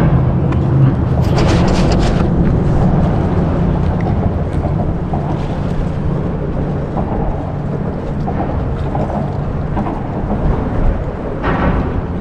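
Boat motor running with a steady low rumble. Brief hissy, splashy bursts come about a second in and again near the end.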